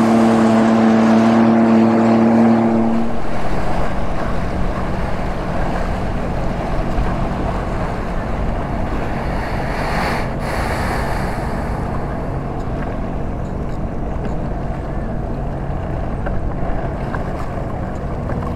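Sea-Doo GTX 155 jet ski's four-stroke engine running at speed with a steady tone, then throttled back about three seconds in. After that, water rushing and slapping against the hull and wind on the microphone take over, with the engine low underneath.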